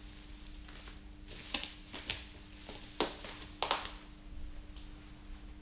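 Bubble wrap around a parcel crinkling as hands handle the box, in a handful of short, sharp crackles over a few seconds, with a longer rustle near the middle.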